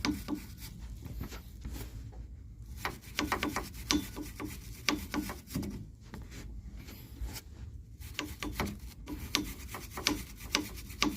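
Steel wire brush scraped in quick strokes against the drive motor belt of a Sole F63 treadmill, in bursts with short pauses, scrubbing off the dirt that makes the belt squeak.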